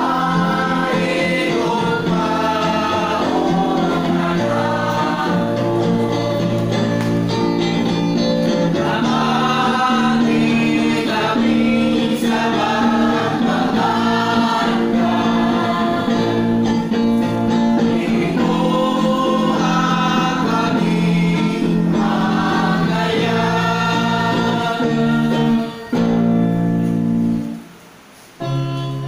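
Devotional song: singing over a steady instrumental backing. The music drops away suddenly about three seconds before the end.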